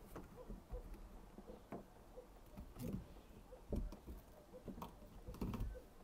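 Faint, scattered knocks and clicks of hands handling materials, with louder thumps about three, four and five and a half seconds in.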